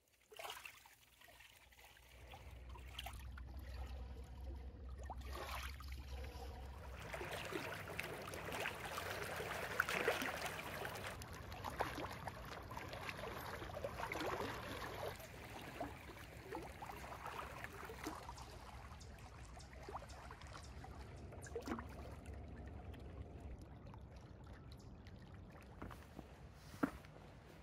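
Small waves lapping and splashing over shoreline rocks, picked up by a phone's microphone, swelling and ebbing. Near the end come a few sharp steps on a forest floor.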